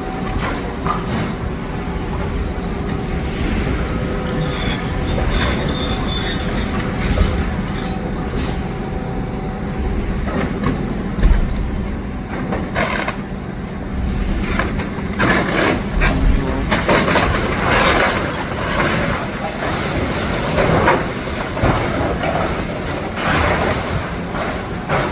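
A demolition excavator's diesel engine running steadily, with irregular crunching and clattering of rubble and masonry, busier from about halfway through.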